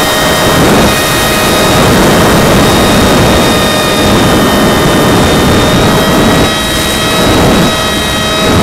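Electric motor and propeller of a Go Discover RC foam plane fitted with an upsized motor and ESC, heard from its onboard camera in flight: a steady high whine over loud wind rush on the microphone.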